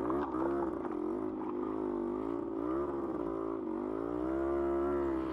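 1972 Yamaha LT2 100 Enduro's single-cylinder two-stroke engine running at low speed, its pitch wavering gently up and down.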